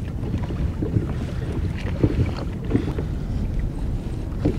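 Wind buffeting the microphone over water lapping against a kayak's hull, a steady low rumble with a few light knocks scattered through it.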